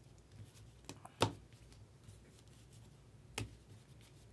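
Three sharp taps and clicks of cards and plastic card holders being handled at a tabletop. The loudest comes about a second in, with a softer one just before it and another at about three and a half seconds.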